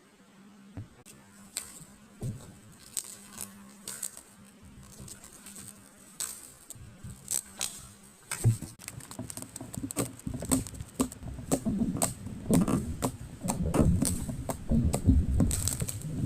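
Jiggly slime being squished and poked by hand, with scattered sticky clicks and pops that grow louder and more frequent about halfway through.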